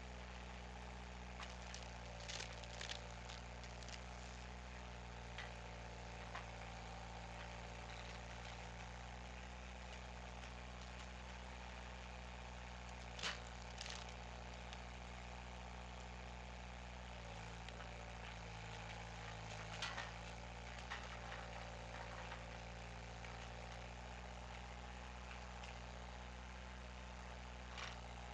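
Skid steer engine running steadily, its note dipping briefly past the middle, with a few sharp cracks or clicks over it.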